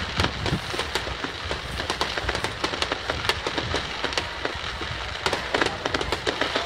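Rapid-fire starmine fireworks barrage: shells bursting in quick, irregular succession as a dense stream of bangs and crackles, with deeper booms in the first second or so.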